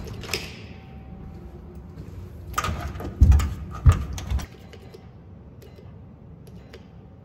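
Metal clicks and rattles of a doorknob and keys on a locked apartment door. About three to four seconds in there is a burst of rattling with two heavy thuds as the locked door is tried against its latch; after that only a few faint clicks.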